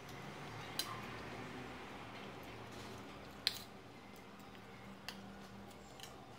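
Metal spoon clinking and scraping against a ceramic plate during eating: a few sharp clicks, the loudest about three and a half seconds in, over a faint low hum.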